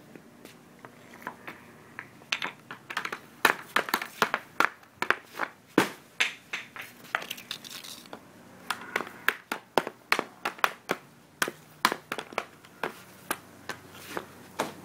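Many sharp, irregular clacks and knocks, some in quick runs: a hockey stick striking pucks on a wooden deck and the pucks hitting the mini net's frame and the wall behind it.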